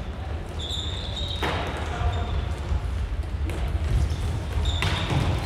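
Floorball play on a sports-hall court: players' footsteps on the hall floor, short high shoe squeaks and a couple of sharp stick-on-ball taps, with players calling out.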